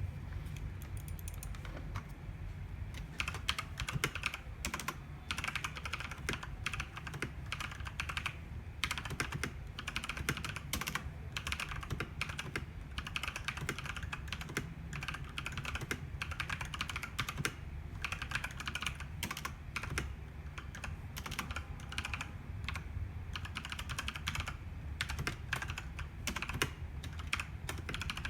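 Typing on an Akko Mojike GK1 mechanical keyboard with Akko Orange v2 tactile switches and PBT keycaps: a fast, irregular run of key clacks, sparse at first and then steady from about three seconds in, with a few short pauses.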